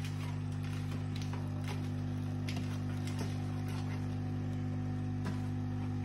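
Siemens fully automatic coffee machine's pump humming steadily as it brews espresso for a cappuccino, with a few faint clicks.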